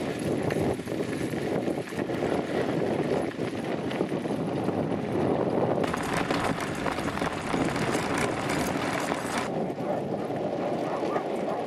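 Wheeled dog cart rolling over a gravel road behind a running husky team: a steady crunch of tyres and paws on gravel.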